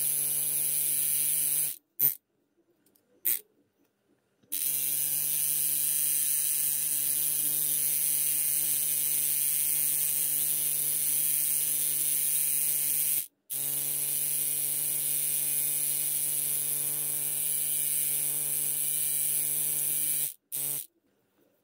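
Homemade tattoo machine's small DC motor buzzing steadily as it drives the needle. It cuts out about two seconds in, with two short blips, then spins back up with a brief rise in pitch. It drops out for a moment in the middle and stops shortly before the end after one last short burst.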